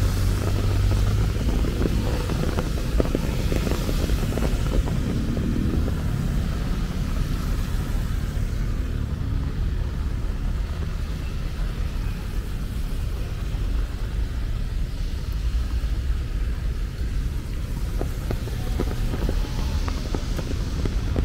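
Rainy outdoor ambience: a steady low rumble under a faint hiss of rain, with a few light scattered ticks.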